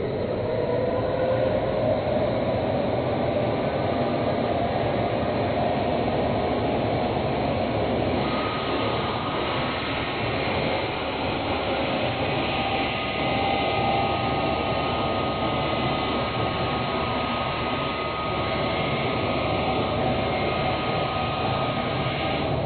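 Electric miter saw running: the motor spins up with a rising whine at the start, then runs steadily as the blade is slowly lowered through a wooden block, cutting off its top.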